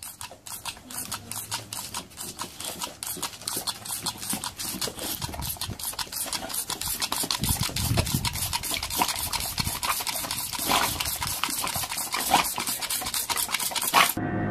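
Toy water pistol squirting in a fast, even run of pulses, about six or seven a second, while a boxer dog snaps at the jet; the pulsing stops abruptly near the end.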